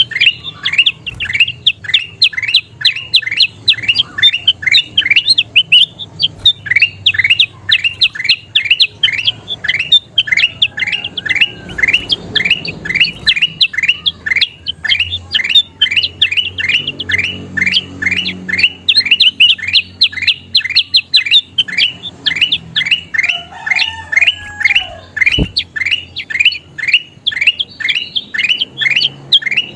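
Kutilang emas, a bulbul, singing a long run of quick, down-slurred chirps at roughly three to four a second, with a couple of brief breaks.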